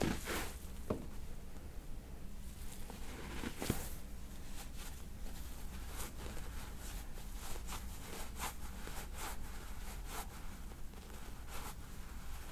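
Fingers kneading the base of the neck through a sweatshirt: soft, scratchy fabric rustles coming in short rubs, more often from about four seconds in, with one sharper click a little under four seconds in, over a steady low hum.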